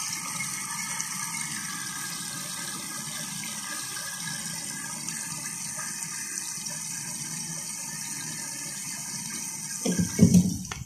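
Small electric pump of a disinfectant spray gun converted into an oil extractor, running steadily with a whine and the wash of oil being drawn up the hose into its bottle. A few loud low knocks come near the end.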